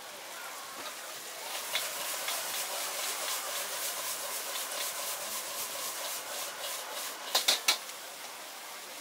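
Noodles sizzling in hot oil in a wok over a gas burner while a metal spatula scrapes and tosses them; the sizzle grows louder about a second and a half in. Near the end, three quick sharp clacks of metal on the wok.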